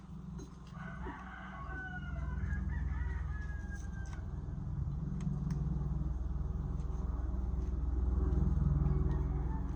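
A bird calling with gliding pitch about one to four seconds in, over a steady low rumble that grows louder near the end.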